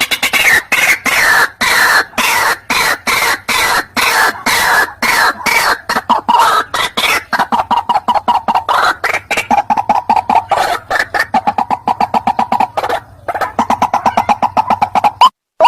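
White-breasted waterhen (ruak-ruak) call played as a hunting lure: a loud, fast run of harsh clucking notes, about four or five a second. The notes fall in pitch at first, then settle into a steadier, lower chatter. There is a brief break late on, and just before the end the call changes to sharp rising notes.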